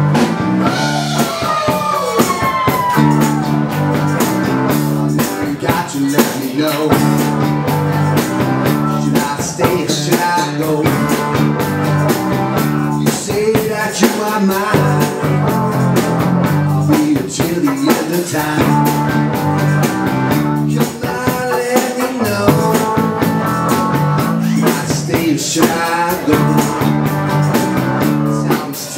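Live dance band playing a rock number: a drum kit keeps a steady beat under a repeating bass line, with a gliding lead line in the first few seconds.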